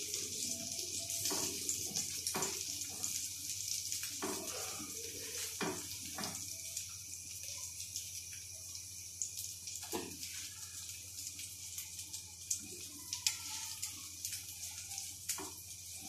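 Egg omelette frying in ghee on a flat tawa over a gas flame turned up high: a steady, high sizzle, with a scattering of light clicks and scrapes from the spatula against the pan.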